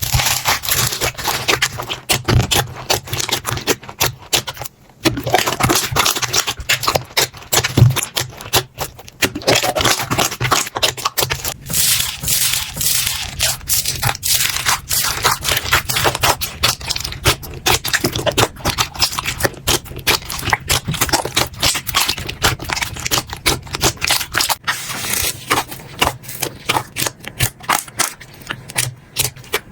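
Slime being handled, making a dense run of crackling, clicking pops with a brief pause about five seconds in.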